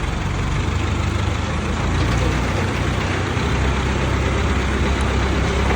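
A heavy engine idling steadily, with a constant low-pitched hum under a noisy hiss.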